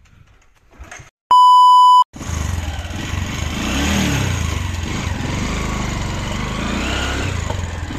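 A loud, steady electronic beep lasting under a second, then a motorcycle engine starts up abruptly and keeps running with a deep rumble.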